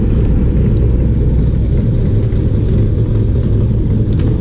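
A boat's engine running steadily, a loud low drone that holds the same pitch throughout, with a light clatter near the end.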